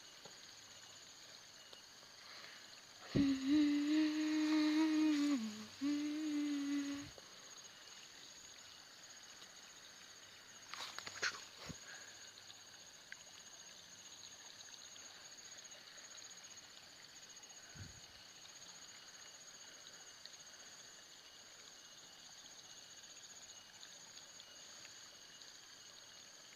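A person humming a held, level note for about four seconds, breaking briefly and humming once more, over a steady high insect chorus; a few soft clicks come about eleven seconds in.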